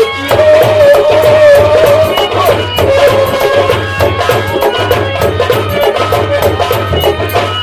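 Live nautanki folk music: drums keep a steady beat with sharp wooden clicks, under a continuous wavering melody line.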